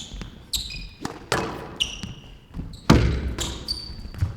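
A squash rally: sharp cracks of the ball striking racket and walls, a few in a row with the loudest about three seconds in, and short high squeaks of court shoes on the floor between the strikes.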